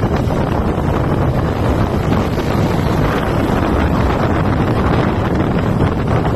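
Steady wind noise on the microphone, loud and unbroken, heaviest in the low end.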